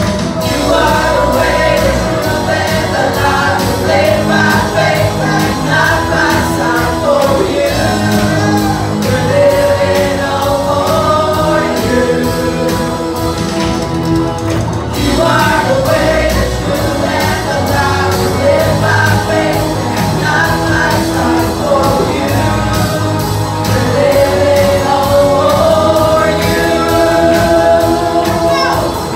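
Live worship music: a woman sings a praise song into a microphone over a band with guitar and a steady drum beat.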